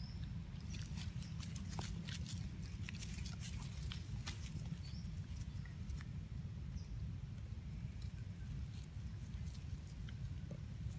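Dry leaf litter crackling and clicking as baby long-tailed macaques move about on the forest floor, thickest in the first half, over a steady low rumble, with a few faint short high chirps now and then.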